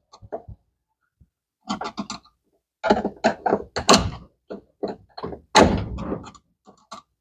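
Irregular series of knocks and clanks as two wrenches work against the metal drive mechanism of a Brastemp BWK 14 washing machine, loosening its lock nut.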